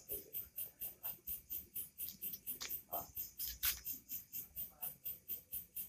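Cricket chirping steadily, about four to five high-pitched pulses a second, under faint murmuring voices.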